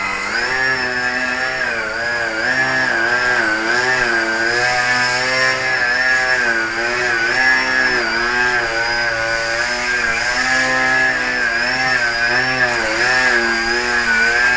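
Radio-controlled model plane's motor and propeller running hard. Its pitch climbs at first, then wavers up and down about once a second as it flies.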